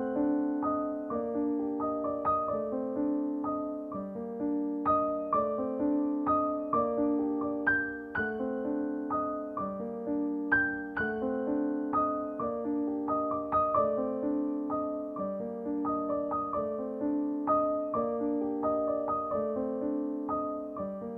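Background piano music, notes struck one after another at an even pace.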